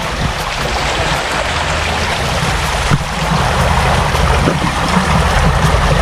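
Stream water running and splashing over rocks close by, steady throughout. Near the end a hand dips into the flow, adding a few small splashes.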